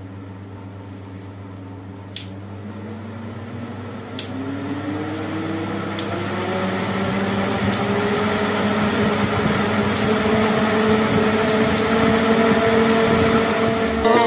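Homemade drum air cooler's fan motor running with a steady hum, speeding up as its speed regulator knob is turned through its steps: six sharp clicks about two seconds apart, while the motor's whine rises in pitch and grows louder.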